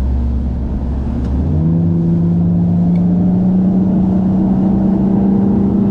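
Bass boat's outboard motor running under way, its engine note stepping up sharply in pitch about a second and a half in and then holding steady as the boat picks up speed, with wind and water rushing past.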